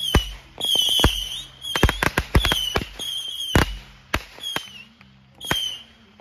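Consumer fireworks going off in quick succession: many sharp bangs and pops, mixed with repeated short, high whistles.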